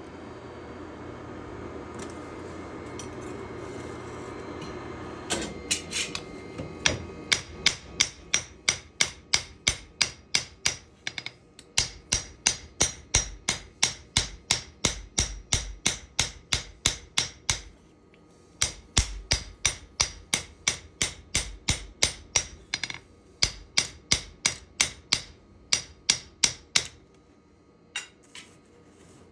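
Hammer blows on steel while a knife blank is forged, about four a second in runs broken by short pauses, each blow ringing sharply. For the first few seconds there is only a steady rushing hum, before the blows begin.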